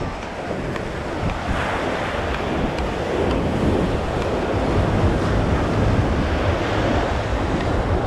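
Ocean surf breaking and washing up the beach in slow swells, with wind noise on the microphone.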